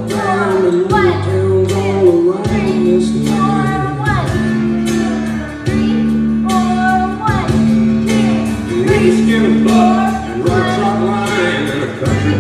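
Country song with singing over guitar, bass and a steady beat.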